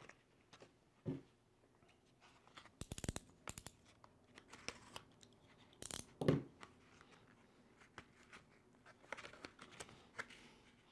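A plastic blister pack on a card backing being torn and prised open by hand, in a run of crinkles and tearing crackles, loudest a little after six seconds in.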